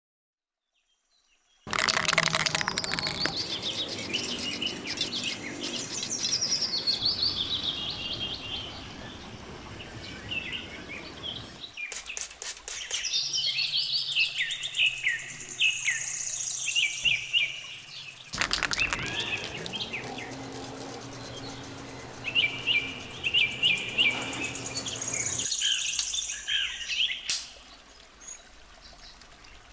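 Birds chirping and singing in quick runs of short, falling notes, the background changing abruptly at several cuts.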